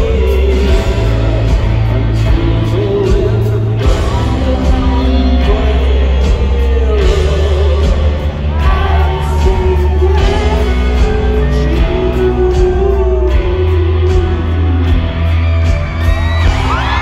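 Live rock band playing in a large hall: a man's voice sings over deep, sustained bass notes and drums. Near the end, audience members whoop.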